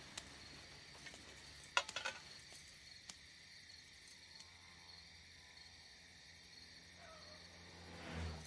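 Quiet room ambience with a faint, steady high chirring. A cluster of sharp clicks comes about two seconds in, and a few single clicks follow.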